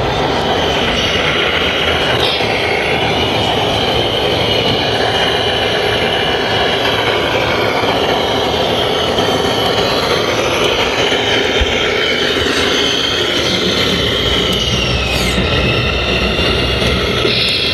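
Radio-controlled scale trucks' electric motors and gearboxes whining, the pitch rising and falling as they crawl through mud, over a steady din of hall noise.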